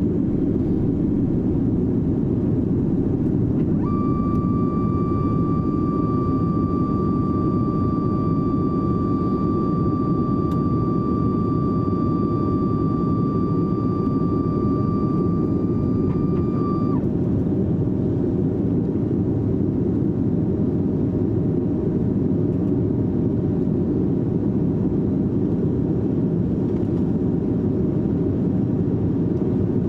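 Cabin noise of a Sukhoi Superjet 100 at takeoff power, heard from a seat over the wing: its SaM146 turbofans and the rushing air make a steady rumble through the end of the takeoff roll and the initial climb. A steady whine runs over the rumble from about four seconds in and stops about thirteen seconds later.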